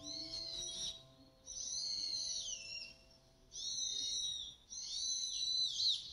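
A bird calling outdoors: four high-pitched calls of about a second each, separated by short gaps, with notes that glide down in pitch. The tail of background music fades out in the first second.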